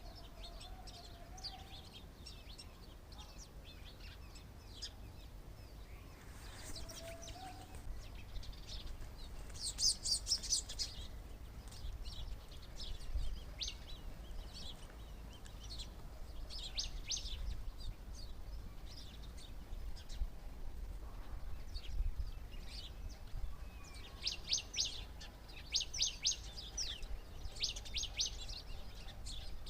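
Small birds chirping in quick clusters of short, high notes, louder bursts coming about ten seconds in and again near the end, over a low rumble.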